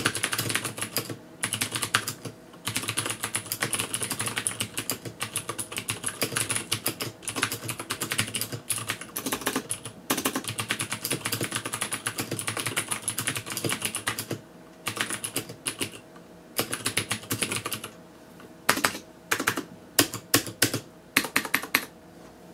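Typing on a Choc Mini mechanical keyboard with clicky Cherry MX Blue switches: fast runs of keystrokes broken by short pauses, slowing to separate, spaced strokes near the end.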